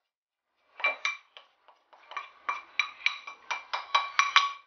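A spoon tapping and scraping against ceramic bowls to knock grated lemon zest out of a small bowl: a quick string of light clinks with a ringing tone. They begin about a second in and come thick and fast from about two seconds on.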